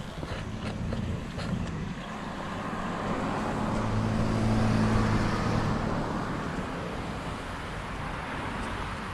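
A car passing by on the road, its engine and tyre noise growing to the loudest point about halfway through and then fading away.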